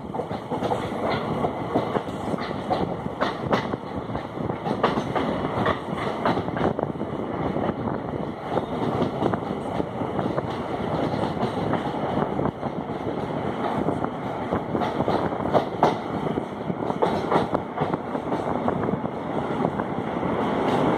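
Running noise of a train heard from on board: a steady rumble of wheels on the rails, broken by irregular clicks and clacks as the wheels pass over the track.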